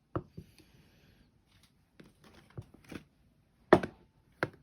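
A hand coffee grinder and its lid being handled: a knock near the start, faint clicks and rubbing, then two sharper knocks near the end.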